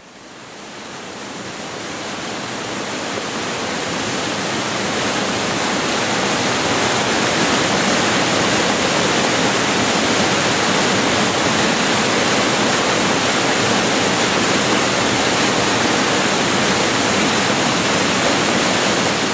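A loud, steady rushing noise, even across all pitches. It rises out of silence over the first few seconds and then holds level.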